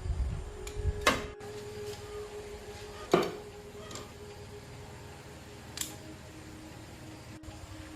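A few sharp metallic clinks of tools or parts being handled, three in all, the second the loudest, over a faint steady hum; a low rumble at the start cuts off abruptly.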